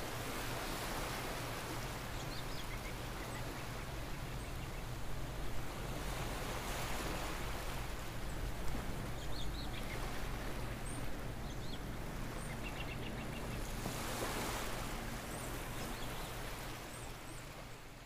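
Steady rushing of a fast river through a rock canyon, swelling gently now and then, with a few faint short high chirps over it; it fades out near the end.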